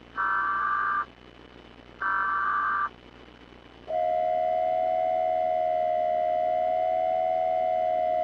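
Emergency alert broadcast tones: two short bursts of buzzy data tones about a second apart, then a long steady alert tone starting about four seconds in, with a slight wobble in pitch.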